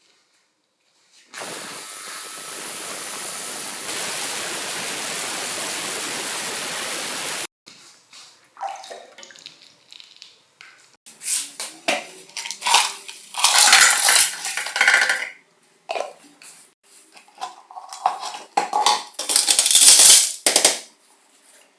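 Water running or spraying in a steady hiss that starts about a second in and cuts off suddenly after about six seconds. It is followed by a series of sharp metallic clinks and short rattling, scraping bursts, like small metal parts being handled and set down.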